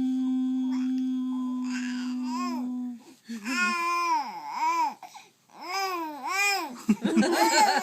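A person imitating whale song with the voice: one long steady held note, then a string of rising-and-falling wailing glides. Laughter breaks in near the end.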